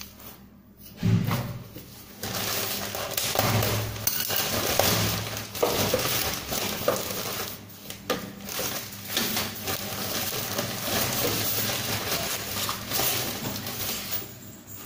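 Plastic bag crinkling and rustling as plastic sink-trap parts are unpacked, with small knocks of the plastic pieces; it starts about two seconds in and drops away near the end.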